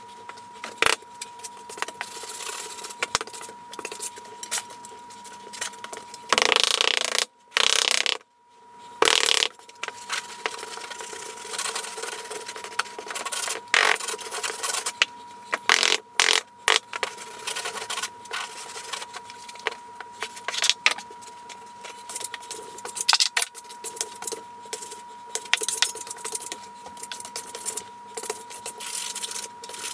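A float and straightedge scraping and rubbing across sand-and-cement mortar while a shower preslope is spread and smoothed: a gritty scraping with frequent small knocks. The sound briefly drops out about seven seconds in.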